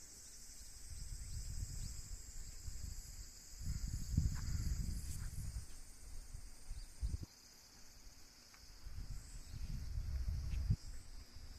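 A steady high-pitched drone of insects keeps on throughout. A low rumble comes and goes over it, loudest around four seconds in and again near the end, where it cuts off suddenly.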